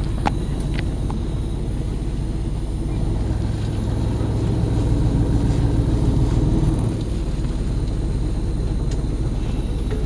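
Bus engine and road noise heard inside the passenger cabin while the bus drives: a steady low rumble whose engine note grows louder from about three and a half seconds in and drops back at about seven seconds. A short click just after the start.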